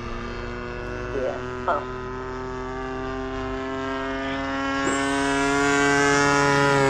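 Petrol engine of a radio-controlled model airplane in flight, running steadily at high throttle. It grows louder about two-thirds of the way through as the plane comes closer, and its pitch starts to drop near the end as it flies past.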